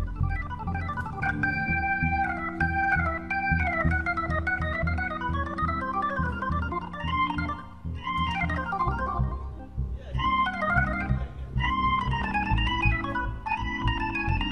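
Hammond organ soloing in quick melodic runs that slide and step in pitch, over a steady low rhythmic pulse from the band. The runs break off briefly twice near the middle.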